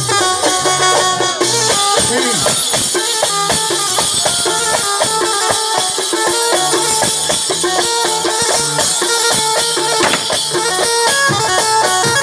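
Instrumental break in Iraqi popular song: a melody moving in quick steps from note to note over steady, busy hand percussion, without singing.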